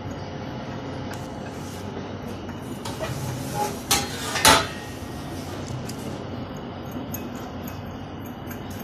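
Steel shovel blade clinking and knocking against a bench dial hardness tester as it is set on the anvil: a few light metal clinks about three seconds in, then a sharp knock about a second later, over a steady low hum.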